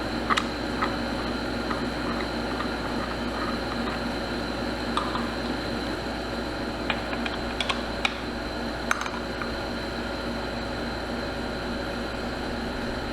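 Steady running hum and hiss of a garage air conditioner, with a few faint clicks scattered through it.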